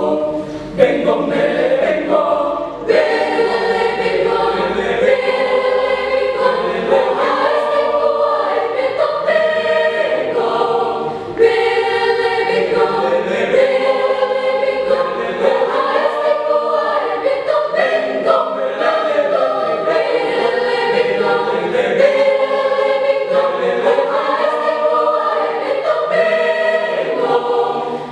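A school choir singing in parts, without a break.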